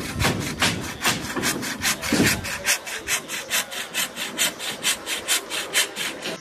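Hand saw cutting through wooden roof battens in quick, even strokes, about four a second.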